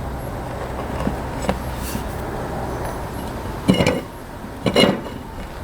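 Metal tools and a wheel rim clanking twice, about a second apart, during tire mounting work, over a steady low hum.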